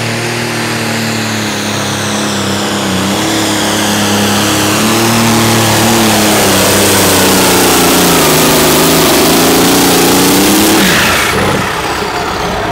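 White pulling tractor's engine running hard under full load as it drags the weight-transfer sled, its pitch wavering and the sound building louder over the first several seconds. About eleven seconds in the engine drops off abruptly as the pull ends, leaving a high whine that falls away.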